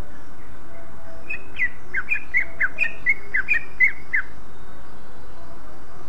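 A caged cucak ijo (green leafbird) singing a quick run of about a dozen sharp, falling notes, starting about a second in and lasting about three seconds, over a steady hiss.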